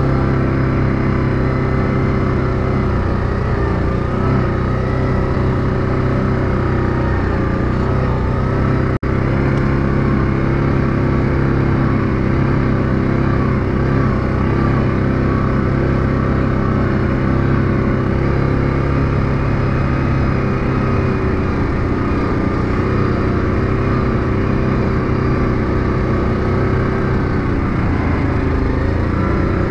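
Yamaha Grizzly ATV's single-cylinder four-stroke engine running steadily while riding along a dirt trail, with a momentary break in the sound about nine seconds in.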